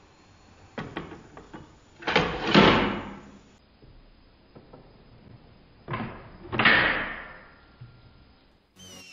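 A few light clicks, then two loud thuds about four seconds apart, each trailing off over about a second. Electronic music starts right at the end.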